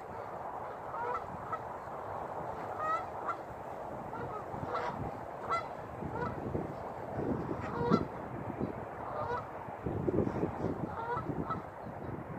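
Canada geese honking: a scattered series of short honks from more than one bird, loudest about two-thirds of the way in.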